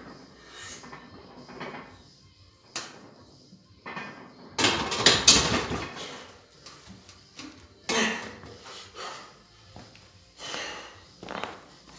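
Heavily loaded barbell and bench-press rack knocking and clanking during a set without a spotter. The loudest is a clattering stretch about five seconds in, with another sharp clank about eight seconds in as the bar is racked.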